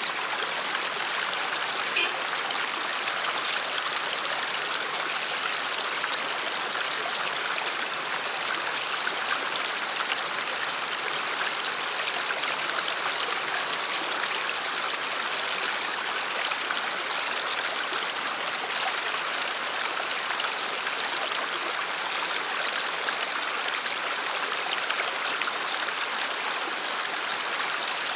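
Shallow stream running over rocks and ice: a steady rush of water.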